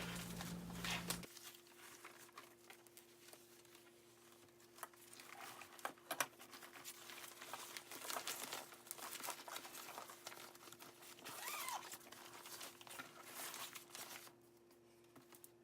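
Faint rustling and crinkling of a fabric storage bag and its packaging being handled, with scattered small clicks. A low hum cuts off about a second in.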